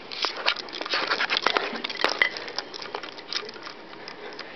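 A rapid flurry of knocks, clicks and rustling from people scrambling about, busiest in the first three seconds and dying away near the end.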